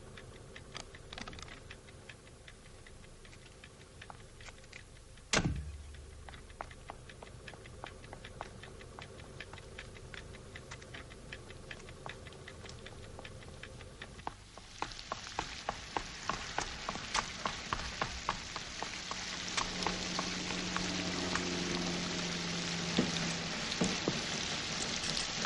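Rain: scattered drops ticking on a car's body and windshield, with one heavy thump about five seconds in. From about halfway through, a louder, denser downpour sets in, and a low hum rises under it for a few seconds near the end.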